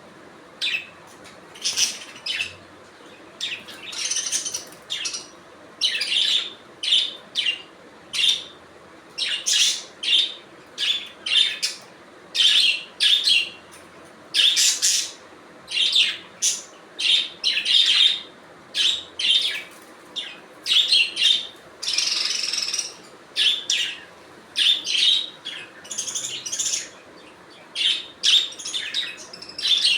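Pet budgerigars chirping and chattering in quick clusters of short, high chirps, with brief pauses between the clusters.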